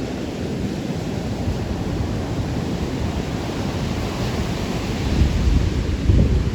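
Rough post-storm surf breaking on a rocky beach, a steady wash of ocean noise, with wind buffeting the microphone in low rumbling gusts that grow stronger near the end.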